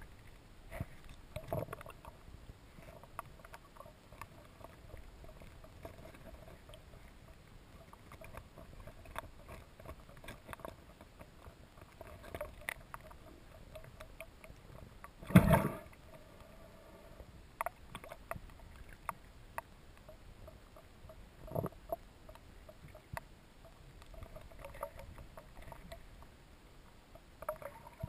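Underwater sound over an oyster reef: a faint steady hum with many small clicks and crackles, broken by a few dull thumps. The loudest thump comes about halfway through.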